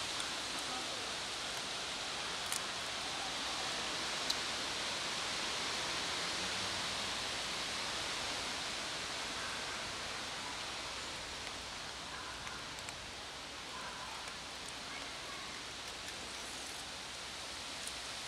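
Steady outdoor background hiss, with a few faint sharp clicks from kittens eating dry kibble out of a plastic tub.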